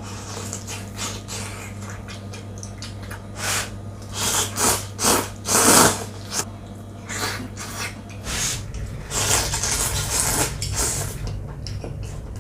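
Irregular rustling and clattering from items being handled, loudest about four to six seconds in, over a steady low hum.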